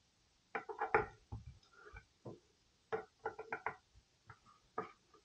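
Light knocks and clicks of a Lee-Enfield No. 4 rifle being handled and turned over on a wooden table, its wooden stock and metal fittings knocking against the tabletop. The knocks come in two bunches, about a second in and again around three seconds in.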